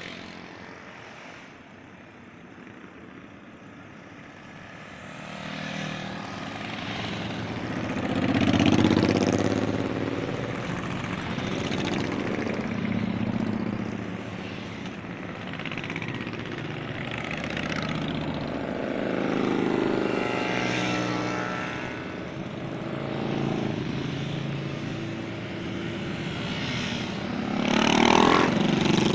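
A column of cruiser motorcycles riding past one after another, each engine swelling and fading as it passes. The sound is faint for the first few seconds, builds from about five seconds in, and the loudest pass comes near the end.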